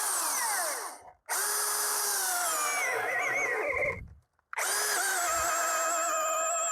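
Milwaukee M18 Fuel battery chainsaw with its motor whining as it runs, cutting into a 19-inch beech log. It stops twice briefly and starts again, and its pitch drops and wavers as the chain takes the load.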